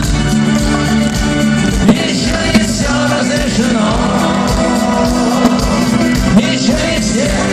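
Rock band music: an instrumental passage between sung verses of a song.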